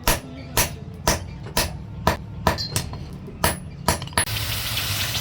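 Blacksmith's hammer striking hot metal on an anvil, about two blows a second, nine in all. Near the end the blows stop and a steady hissing noise takes over.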